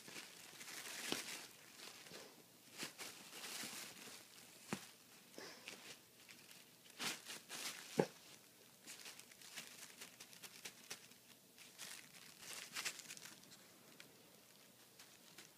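Thin plastic bag crinkling and rustling in irregular spurts as a cat paws and bites at it, with one sharp tap about eight seconds in.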